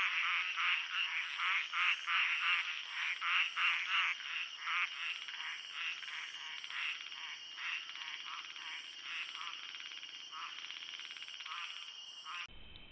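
Frogs croaking at night in rapid repeated pulses, about four a second at first, then thinning out and fading, over a steady high hum.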